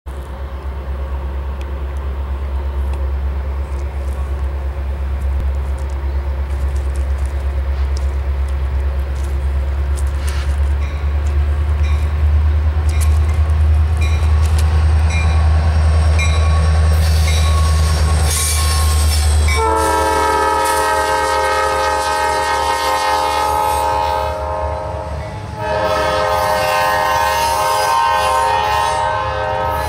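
Norfolk Southern diesel locomotive approaching with a steady low rumble and clicking wheels, then its air horn sounding a loud chord of several tones: two long blasts with a short break between them.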